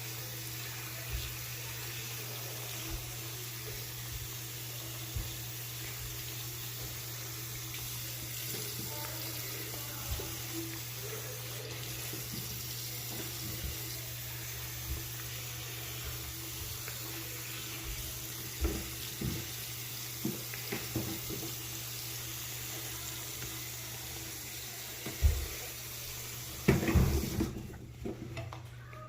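Bathroom tap running water steadily, with occasional light knocks and clunks. The water is shut off about a second or two before the end.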